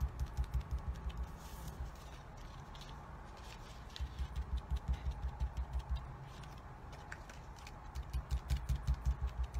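Foam ink dabber tapping quickly on a paper card on a tabletop: dull, even taps at about six a second, in three short runs with soft rustling between.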